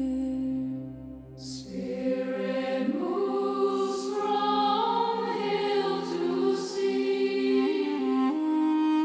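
Slow devotional music: a held low drone and chord fade out about a second in, then wordless choir-like singing enters over sustained chords.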